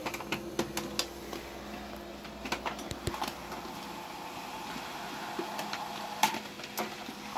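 HP LaserJet Pro M102w laser printer running a test print of its report pages: a steady mechanical whir with many small clicks and ticks from the paper feed, and one sharper click about six seconds in.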